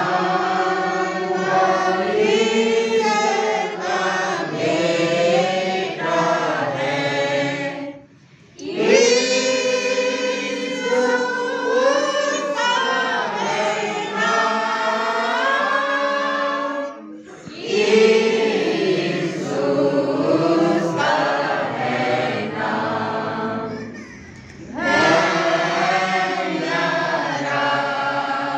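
Congregation singing a hymn together, unaccompanied, in long phrases broken by short pauses about three times.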